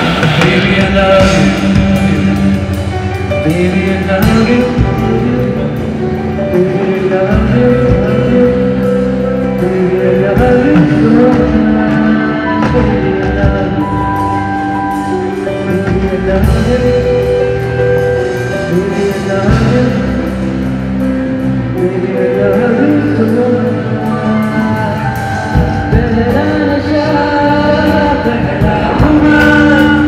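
A man singing a song into a microphone over band music with electric guitar and drums, sustained notes held throughout.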